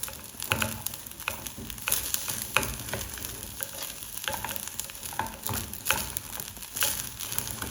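Curry base frying in a little oil in a non-stick pot, sizzling steadily while being stirred, with irregular scrapes and knocks of the spoon against the pot. The mixture is cooking down dry, short of oil.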